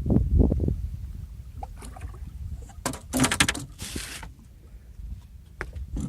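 Low knocks on a small boat in the first second, then a quick rattle and a short splashy burst about three to four seconds in, as a large channel catfish is handled at the side of the boat.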